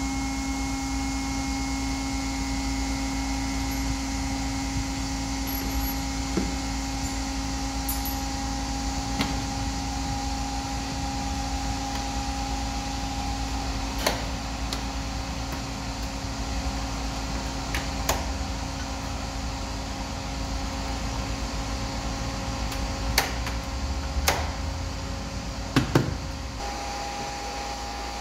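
Steady machinery hum with several constant tones, with scattered light knocks and clicks from hands and tools working on the air compressor's air filter housing, a cluster of sharper knocks near the end.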